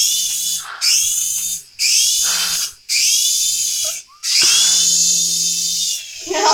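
Small electric rotor motor of a toy remote-control helicopter whining up in five quick throttle bursts, its pitch rising at the start of each burst and then holding; the last burst is the longest.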